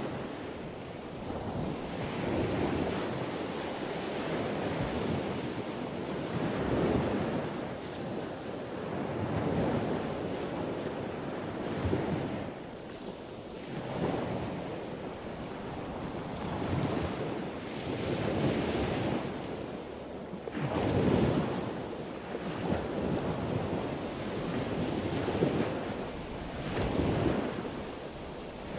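Wooden spoon stirring flour and then a sticky bread dough in a bowl: swishing, scraping strokes that swell and fade every second or two.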